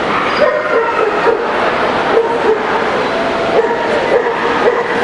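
Dogs barking and yipping in quick repeated short calls over the steady din of a crowded, echoing exhibition hall.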